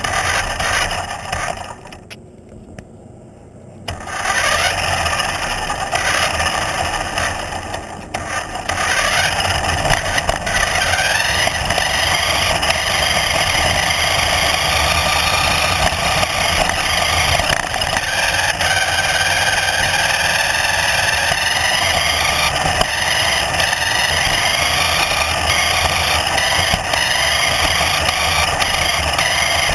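A vehicle's motor running, quieter for a couple of seconds near the start and then loud and continuous, its pitch slowly rising and falling.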